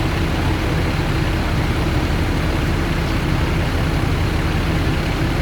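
Bus engine running with road noise, heard from inside the bus near the front: a steady low rumble with no horn.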